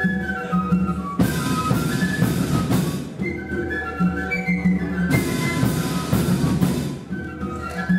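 Melody flute band playing a tune together, flutes carrying the melody over a low held part, with percussion and loud struck accents about a second in and again about five seconds in.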